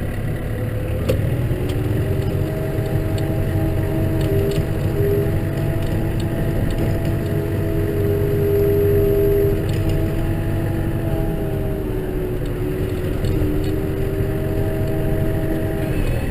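Case tractor engine running steadily while ploughing snow, its note rising a little and falling back as the revs change, with a few faint clicks.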